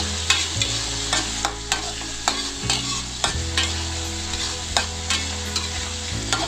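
Stir-frying in a metal wok: a metal spatula scrapes and taps against the pan in irregular strokes, about two a second, over the steady sizzle of shallots, garlic, chili and tomato frying in hot oil.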